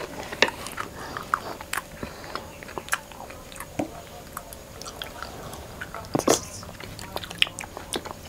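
People chewing honeycomb and mango popping boba: scattered wet mouth clicks and small pops, with a louder cluster about six seconds in.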